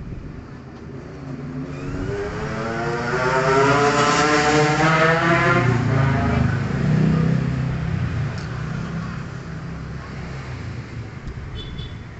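A motor vehicle engine swells up over a couple of seconds with its pitch rising, runs loud for a few seconds, then fades away.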